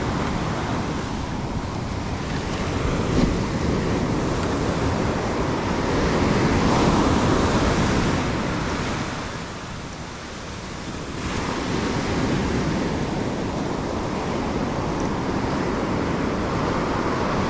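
Ocean surf breaking and washing up a sandy beach, a steady rush that swells louder a few seconds in, falls away briefly, then builds again with the next wave.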